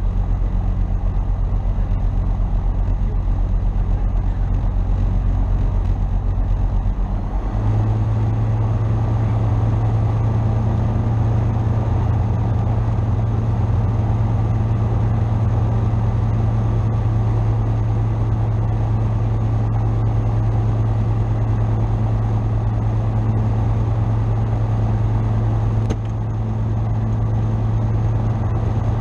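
Tecnam P2002 JF's Rotax 912 four-cylinder engine and propeller running at low rpm on the ground. About seven seconds in the engine note steps up to a higher, steady speed, with a brief dip near the end.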